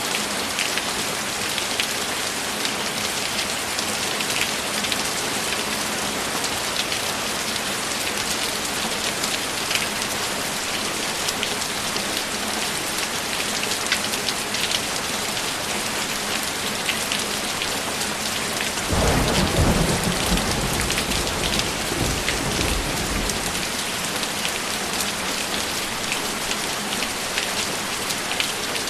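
Steady heavy rain falling on a surface, with scattered drops ticking close by. About two-thirds of the way through, a roll of thunder breaks in suddenly and rumbles for about five seconds before fading back under the rain.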